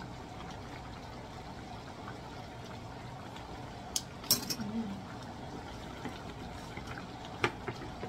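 Chicken stew in tomato sauce simmering and being stirred in a pot with a wooden spoon, with a few sharp clinks of a utensil against the pot about four seconds in and again near the end.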